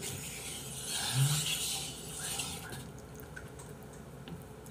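Saucy jjapaghetti noodles being stirred and twirled in a bowl with wooden chopsticks, a wet rubbing that fades after about two seconds. There is a brief low grunt about a second in.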